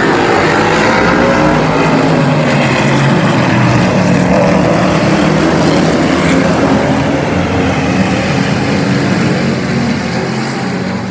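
Super-truck race engines at full throttle as the pack runs past, several engine notes overlapping and shifting in pitch. The sound eases off slightly near the end.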